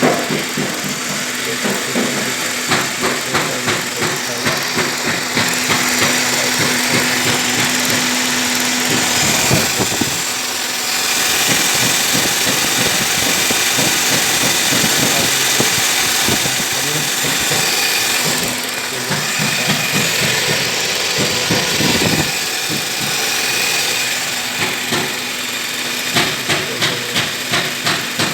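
Toyota Yaris engine running at idle under a steady hiss, with runs of quick ticks about two seconds in and again near the end.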